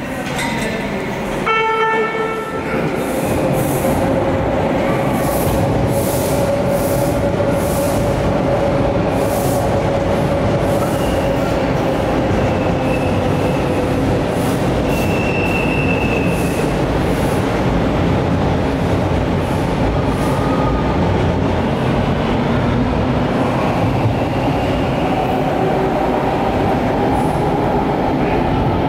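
TTC Bombardier T1 subway train running through the station at speed without stopping. There is a short horn blast about two seconds in, then the steady rumble of wheels on rail with a whine that slowly drops in pitch and a brief high wheel squeal partway through.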